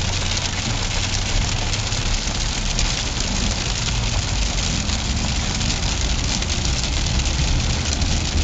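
Car engine running with a steady low hum under a continuous hiss of road noise, heard from inside the car.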